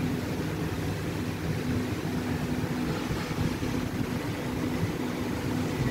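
A steady low mechanical hum and rumble, with a faint held tone running through it.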